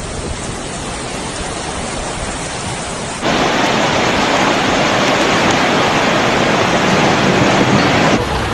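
Steady rush of water from the storm flooding, heavy rain or running floodwater, that jumps abruptly louder and brighter about three seconds in.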